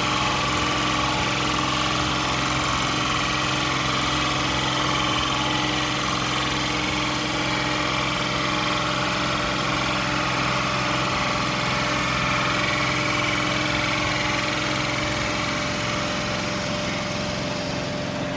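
CNC router spindle running steadily, a constant machine hum with a broad noise of cutting and motors over it, easing slightly near the end.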